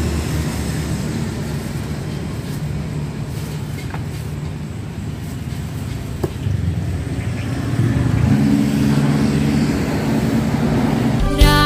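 Road traffic: the low hum of passing motor vehicles, swelling with a steady engine drone about two-thirds of the way in. Music cuts in at the very end.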